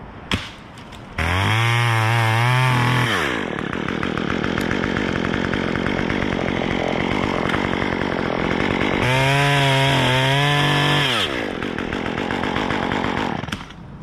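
Stihl top-handle chainsaw revved to full throttle about a second in, then held under load while cutting dead maple wood, revved up again around nine seconds, and dropping away near the end.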